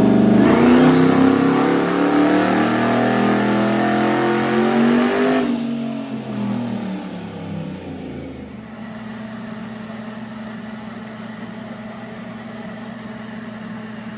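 Twin-turbocharged truck engine making a wide-open-throttle dyno pull on 5.5 pounds of boost. The engine note climbs for about five seconds with a rising turbo whistle, then cuts off sharply at the lift. The revs fall away over the next few seconds and it settles into a steady low idle.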